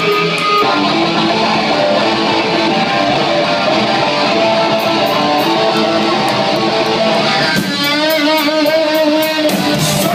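Punk rock band playing live: loud electric guitars and bass over drums, with cymbal strikes coming through from about five seconds in.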